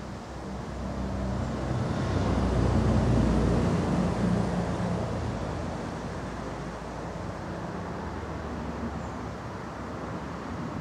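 A vehicle driving past: engine and road noise swell to a peak about three seconds in, then fade back into a steady background hum.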